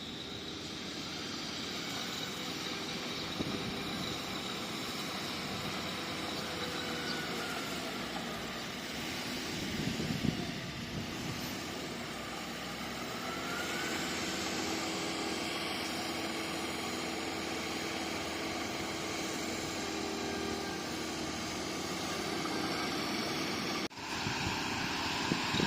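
Bulldozer's diesel engine running steadily, with a brief louder swell about ten seconds in.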